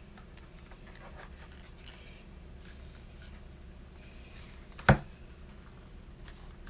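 Plastic housing halves of a Dremel rotary tool being handled and fitted together, with faint rubbing and scraping and one sharp click about five seconds in.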